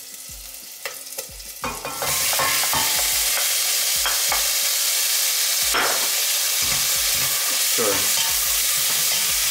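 Cut kimchi frying in hot sesame oil in a stainless steel pot. A loud, steady sizzle starts suddenly about two seconds in as the kimchi hits the hot pot, and a wooden spoon stirs it through the sizzle.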